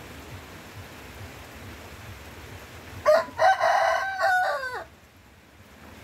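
Steady rain on forest foliage; about three seconds in, a rooster crows once, a loud call just under two seconds long that rises at the start, holds, and falls in pitch at the end. Just after the crow the rain sound briefly dips quieter.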